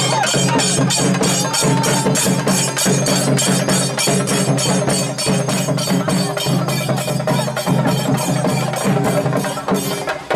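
Group of large cylindrical drums played together in a festival procession, beating a fast, steady rhythm of several strokes a second without a break.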